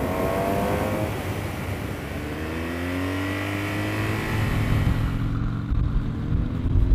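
Motorcycle engine on the move: its pitch drops in the first second, then climbs steadily over a couple of seconds as it accelerates, and a heavier, louder rumble comes in about five seconds in.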